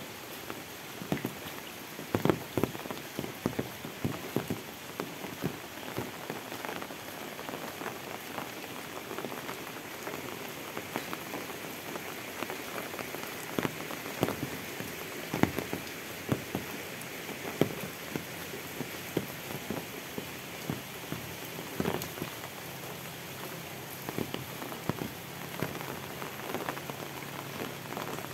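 Steady rain falling on a paved village road and the plants beside it, a constant hiss broken by many sharp, close drop hits at irregular moments.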